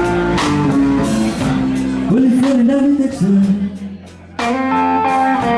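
Blues band playing a slow blues, led by electric guitar with bent notes between the vocal lines. The band drops almost out for a moment about four seconds in, then comes back in together.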